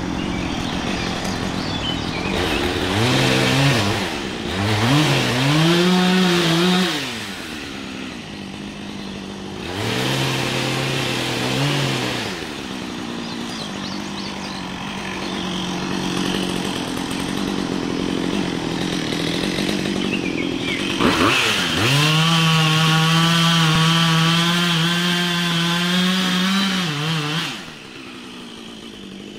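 Husqvarna chainsaw idling between short revs, then held at full throttle for about six seconds as it cuts into a tree trunk, dropping back to idle near the end.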